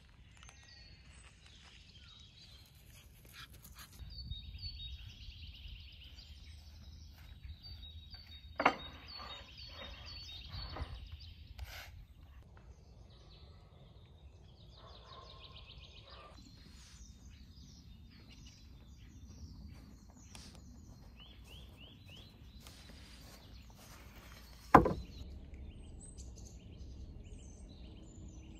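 Woodland birds singing, many short chirps and trills. Two sharp knocks stand out, about nine seconds in and again near the end.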